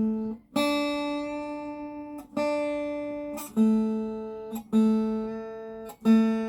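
Acoustic guitar chords strummed one at a time, six slow strums, each left to ring and fade before the next.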